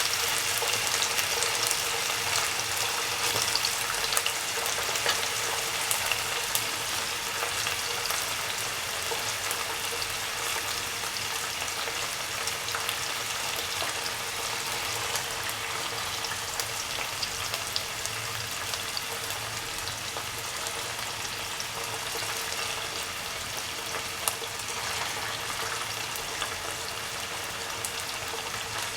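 Marinated anchovies shallow-frying in oil in a non-stick pan: a steady sizzle with scattered small crackles that eases slightly over time, over a faint steady hum.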